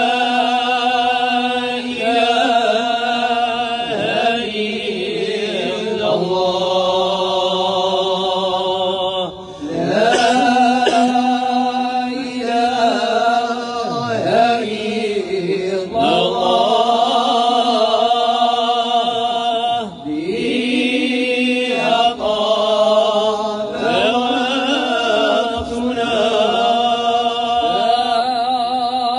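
Moroccan madih devotional chanting: male voices sing slow, ornamented phrases with long held, wavering notes and brief breaks between phrases, with no drums or other percussion.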